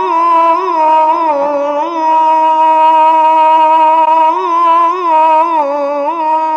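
A male voice singing one long, drawn-out melismatic note of Egyptian religious chant (ibtihal). The pitch is held steady, with quick ornamental turns every half second or so.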